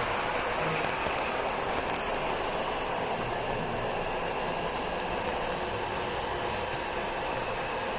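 Gauge 0 model train running on the layout's track: a steady rolling rumble of wheels on rails, with a few light clicks in the first two seconds.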